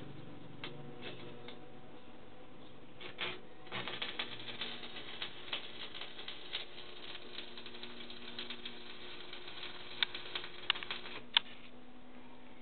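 Stick (arc) welding a joint on a steel window-grill frame: the arc crackles and sputters steadily from about four seconds in, with a few sharp pops near the end before it stops.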